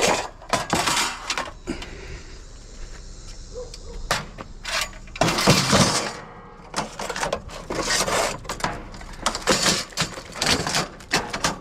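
Metal scrap clanking and rattling as it is handled, in repeated bursts of sharp knocks, the longest rattle about halfway through. The scrap is most likely a metal rail being picked up and loaded.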